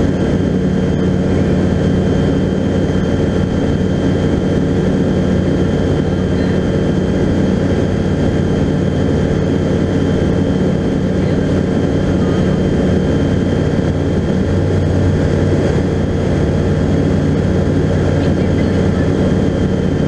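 Skyranger Classic microlight's engine and propeller running steadily in flight, heard from inside the cockpit.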